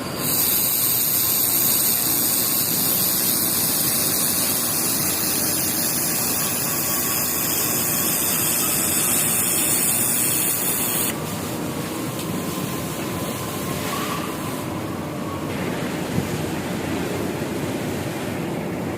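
Reci FC1500 laser welding machine firing: a loud, steady hiss for about eleven seconds that cuts off suddenly, leaving the machine's quieter steady running noise, with one sharp click a few seconds later.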